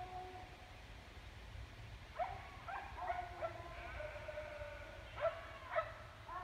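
Dogs barking in the distance: four barks in quick succession about two seconds in, then two more about five seconds in, each with a drawn-out, slightly falling tail.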